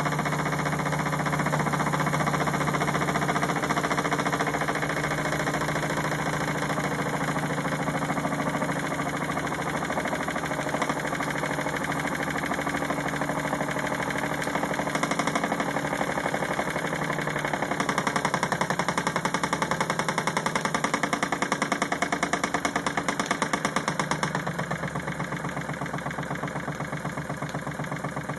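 Wilesco D16 toy steam engine running throttled back, its piston and flywheel giving a fast, even mechanical beat that slows and becomes more distinct in the second half as the engine settles to a smooth, very low RPM.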